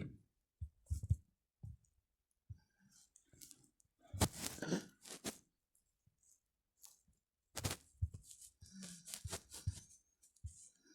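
Faint, scattered rustles and clicks in short clusters with quiet gaps between, the busiest stretch about four to five seconds in.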